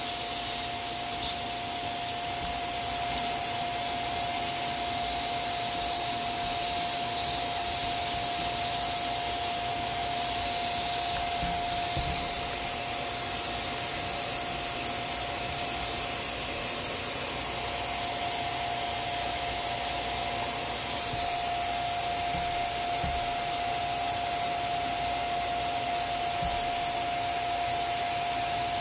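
Vacuum cleaner running steadily, its motor giving a constant whine over an even rush of air, drawing dust and lint out of a sewing machine.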